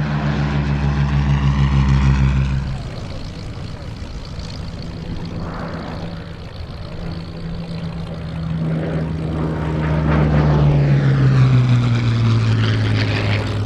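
Hawker Sea Hurricane's Rolls-Royce Merlin V12 engine and propeller in flight. The engine note is loud at first, drops away suddenly a few seconds in, then builds again as the aircraft comes back past and falls in pitch as it goes by.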